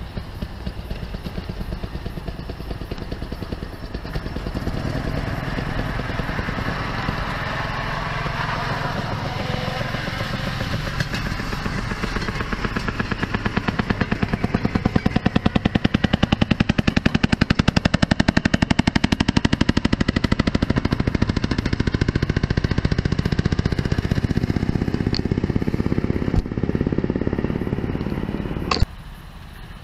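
Railroad speeders' small engines running with a rapid, popping exhaust beat as the cars pass on the track. The sound grows louder to a peak about halfway through, eases off, and cuts off sharply near the end.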